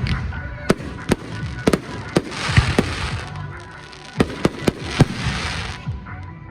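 Fireworks display: a rapid series of sharp shell bursts, with a dense crackling hiss from crackle shells from about two seconds in until near the end.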